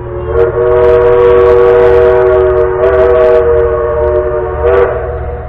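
Locomotive whistle sounding one long chord of several steady notes for about five seconds, wavering slightly in pitch partway through.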